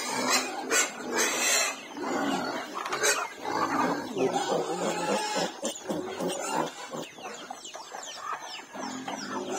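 Piglet squealing in repeated cries, in pain while held down and castrated with a razor blade.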